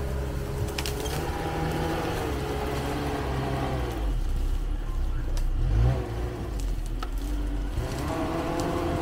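Sherp ATV's diesel engine running under load as the machine crawls into a pile of cut brush. The engine note falls and rises and is loudest about six seconds in, and a few sharp snaps of branches break through.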